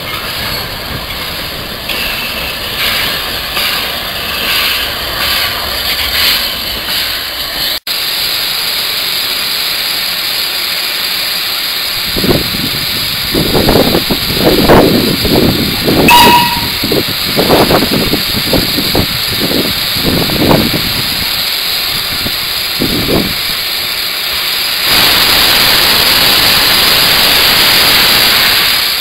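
LBSC 'Terrier' 0-6-0 tank engine 662 Martello in steam: a steady hiss, then a run of irregular exhaust puffs in the middle, and near the end a louder continuous hiss of steam blowing from the cylinder drain cocks.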